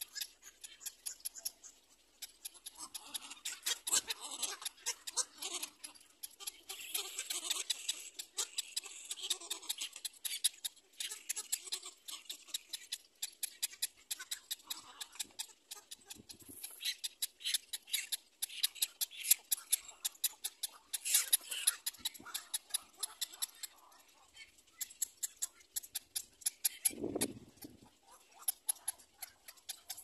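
Cormorant nesting colony: rapid, irregular ticking and clicking, several clicks a second, with patches of raspy high-pitched calling and a low call lasting about a second near the end.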